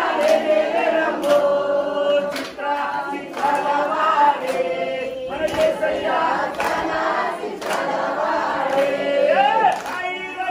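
A congregation of men and women singing a worship song together, accompanied by regular hand claps about once a second.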